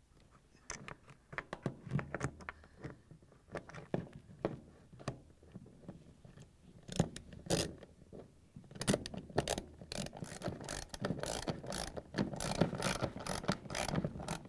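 Ratchet wrench clicking as a 3/8-inch socket on a long extension drives in the screw that holds the dishwasher pump motor's shield. The clicks are scattered at first, then come in quicker, denser runs over the last few seconds as the screw is tightened down.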